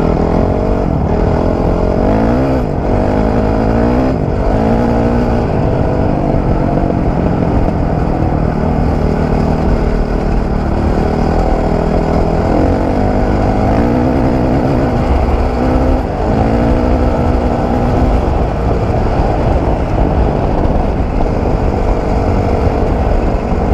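2003 Honda CRF450R single-cylinder four-stroke dirt-bike engine running under way. Its pitch climbs and drops several times as the throttle is opened and eased through the gears, over a steady low rumble.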